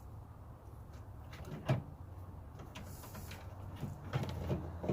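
A sharp knock about a second and a half in, then a few light clicks and taps near the end, over a low steady hum.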